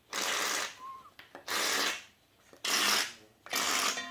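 Aerosol shaving cream can spraying in short sputtering hisses, about four spurts, as it dispenses unevenly; the can is brand new, and the uneven output is blamed on the way it is held.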